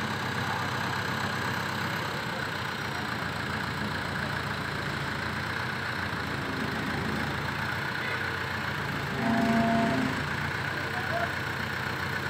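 Diesel engine of an Escorts mobile crane running steadily while the crane lifts a steel storage tank. A brief, louder pitched sound rises over it about nine seconds in.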